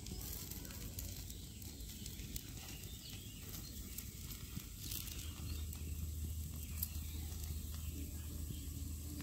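Chakuli batter of rice and lentil sizzling steadily on a hot iron tawa, with faint crackles. A low hum joins about halfway through.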